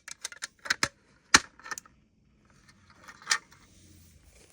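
Irregular sharp clicks and light knocks of small hard hardware being handled, about seven in all, the loudest about a second and a half in.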